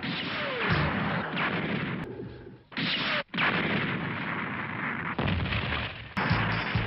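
Anime battle sound effects: a giant robot's beam rifle firing and explosions in quick succession, with a falling tone about half a second in. The sound breaks off abruptly twice near the middle where clips are spliced together.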